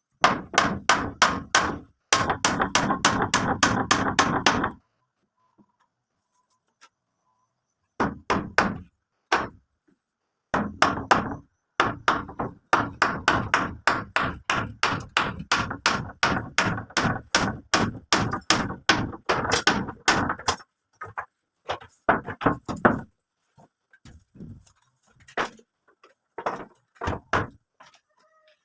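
Hammer blows on wood struck quickly in long runs, several a second. They pause for a few seconds after about five seconds in, then resume and turn sparser near the end.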